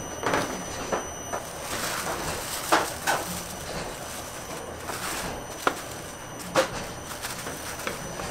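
Thin plastic sheeting rustling and crinkling in repeated swishes as it is spread over a tray of metal baking tins. A couple of sharp clicks come about two-thirds of the way through, over a steady background hum.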